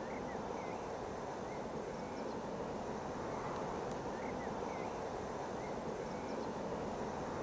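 Steady outdoor background noise, an even hiss-like rumble, with a few faint, short bird chirps scattered through it.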